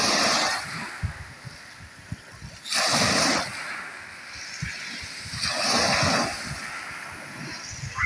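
Small sea waves lapping and washing onto the shore. Three swells of splashing rise and fade about three seconds apart.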